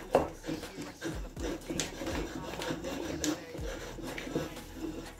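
Wooden spoon stirring and beating thick churros dough in a stainless steel saucepan, with irregular scraping and knocks of the spoon against the pan, one sharp knock just after the start. The flour is being worked fast into the hot milk, water and margarine to cook the dough.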